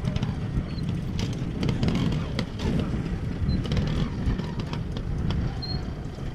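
Classic trial motorcycle engine running at low revs, rising and falling unevenly as it climbs over rocks, with scattered knocks.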